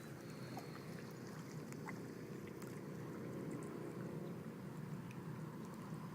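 Quiet lakeside ambience: a steady low hum with faint light ticks and chirps over it.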